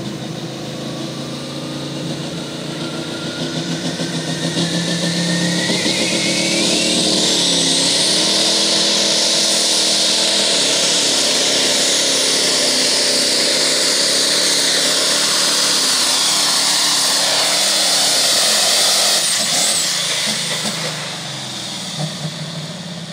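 Limited Pro Stock pulling tractor's turbocharged diesel engine under full load on a pull. The engine and turbo whistle climb over the first several seconds, hold at full throttle, then drop away about twenty seconds in as the run ends.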